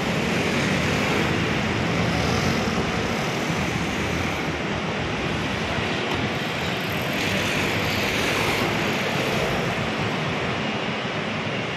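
Steady road traffic noise from cars and scooters on a busy city street, an even rumble without distinct events.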